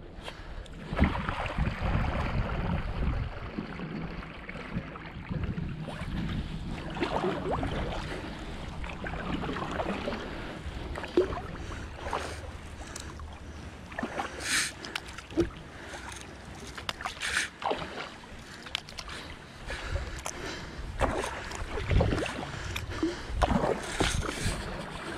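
Double-bladed paddle strokes from a Swell Watercraft Scupper 14 sit-on-top kayak: blades dipping, splashing and dripping in calm water in an irregular rhythm, with a few sharper splashes in the middle stretch.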